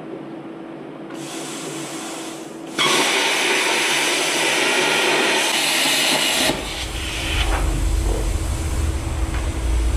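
Plasma cutter cutting a notch in metal plate. A softer hiss begins about a second in. Then the cut runs as a loud, steady hiss for about four seconds and stops abruptly. A low rumble carries on after it.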